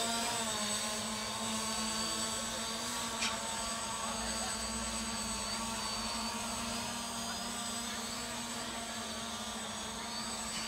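Small multirotor drone hovering, its motors and propellers giving a steady hum of several tones. A single short click about three seconds in.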